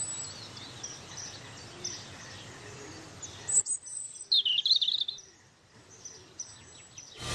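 Birds chirping: scattered short high calls over a faint outdoor hiss, with one louder burst of calls about halfway through.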